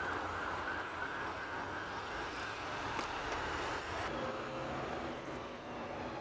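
Steady road traffic noise from cars on an adjacent street. A low engine hum joins in about four seconds in.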